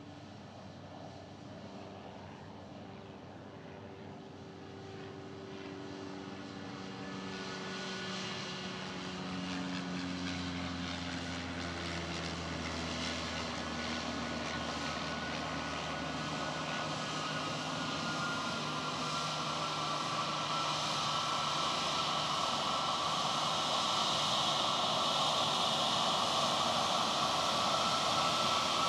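Spirit Airlines Airbus A320-family jetliner on approach to land, its engine noise growing steadily louder as it nears. Low hums slide slowly down in pitch, and a higher whine grows stronger in the second half.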